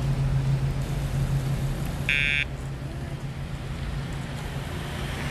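Steady low drone of a running engine, with one short, high electronic beep about two seconds in.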